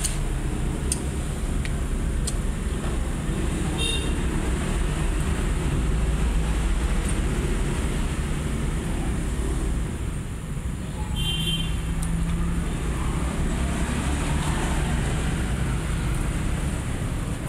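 Steady low rumbling background noise, with a few faint clicks and two brief high chirps, about four and eleven seconds in.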